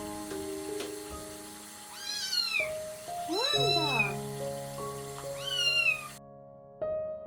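Kitten meowing three times, each cry rising then falling in pitch.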